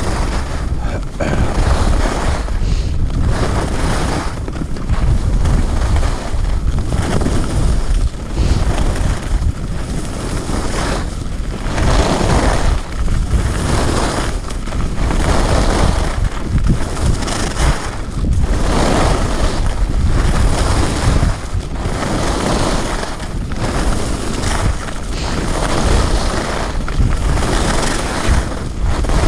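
Wind rushing over a GoPro's microphone during a downhill ski run, mixed with skis scraping over groomed snow. The scrape swells and fades every second or two.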